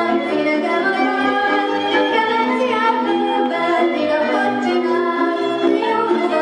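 Hungarian folk dance music: fiddle and women's singing over a regular bass beat.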